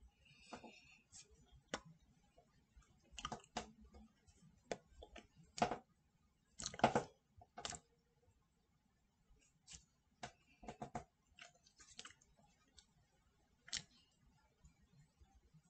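Scattered soft clicks, taps and slaps of hands striking and brushing each other and the body during signing, irregular, with a louder cluster about halfway through.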